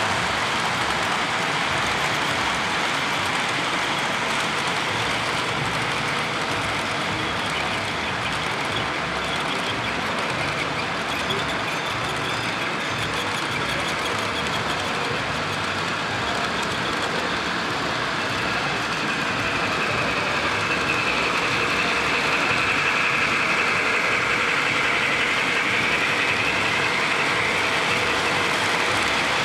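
O-gauge model freight cars rolling past on three-rail track: a steady rolling noise of wheels on the rails, with a higher-pitched note joining in for several seconds in the second half.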